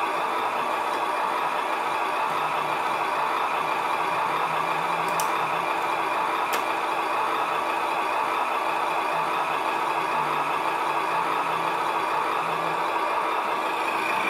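Simulated engine idle played through the onboard sound module's small speaker of an HG P408 RC Humvee, running steady and unchanging. Two light clicks sound about five and six and a half seconds in.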